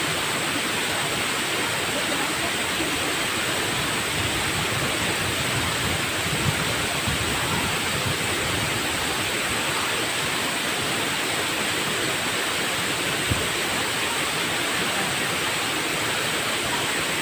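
Waterfall's steady rushing roar of falling water, even and unbroken, with a couple of faint knocks.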